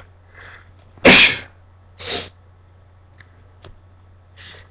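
A man sneezes once, loudly, about a second in. The sneeze is set off by tickling the inside of his nose with a cotton swab. About a second later comes a shorter, softer breathy sound, and there is a faint breath near the end.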